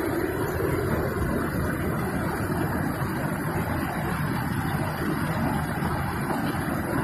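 Muddy floodwater from a heavy downpour rushing and churning in a torrent: a steady, dense rush of water.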